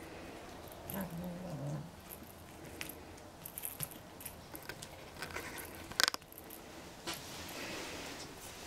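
Scottish Fold kittens playing on a sisal cat tower: a short, low growl from a kitten about a second in, over scattered small scratches and taps of claws and paws on the tower, with one sharp click about six seconds in.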